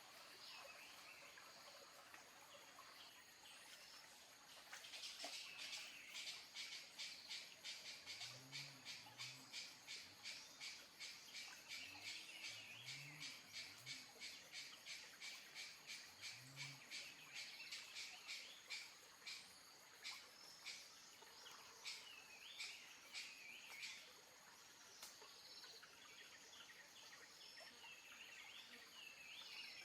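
Forest wildlife calls: birds chirping, with a long rapid series of high pulsed calls, about three to four a second, that starts a few seconds in and stops near the two-thirds mark. Low, curved calls sound in three short groups during the middle.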